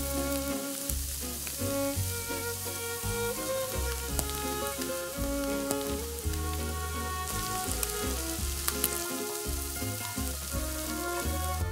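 Minced pork, diced onion and scallion sizzling in hot oil in a pan as the base for soft tofu stew, stirred with a wooden spatula that scrapes and clicks now and then, over background music with a steady bass line.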